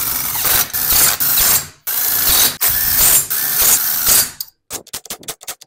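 Cordless DeWalt driver spinning cylinder head bolts down on a small engine in three or four bursts, snugging them before torquing. Near the end it gives way to a quick series of sharp clicks.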